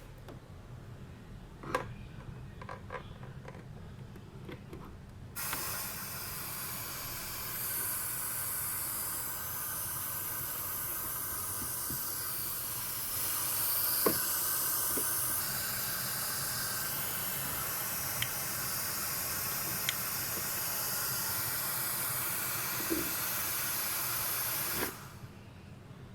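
Yamaha PSR-3000 keyboard's speakers giving a steady hiss over a low hum. The hiss comes on suddenly about five seconds in and cuts off suddenly near the end, with a few clicks along the way. This is the noise fault that appears when a microphone is plugged in.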